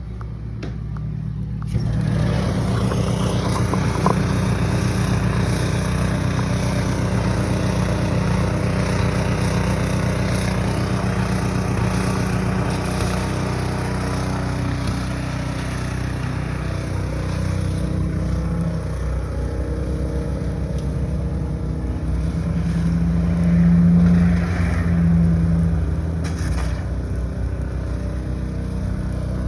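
Snowblower engine running steadily. It becomes abruptly louder about two seconds in and swells briefly for a couple of seconds near the end.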